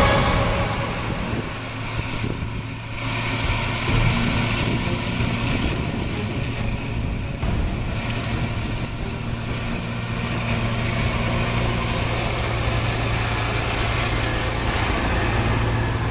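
Holmer Terra Variant 600 self-propelled slurry applicator's diesel engine running steadily under load, a constant low hum with the rumble of the big tyres and the trailed cultivator working the soil.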